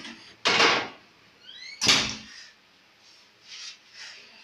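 Countertop electric oven being handled: two loud clattering knocks about a second and a half apart, the second preceded by a short rising squeak.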